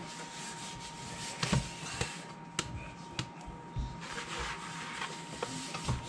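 Hands working sticky soda bread dough into balls over plastic mixing bowls: soft squishing and rubbing with a few light knocks, over a faint steady high-pitched hum.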